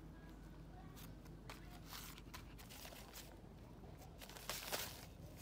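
Faint handling noise: a few brief scuffs and rustles, the loudest a little before the end, over a low steady hum.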